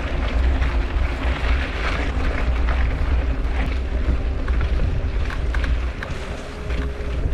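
Wind rumbling hard on the camera microphone during a mountain bike ride on a dirt trail, with the hiss of tyres on the dirt and small clicks and rattles from the bike. The rumble eases a little near the end.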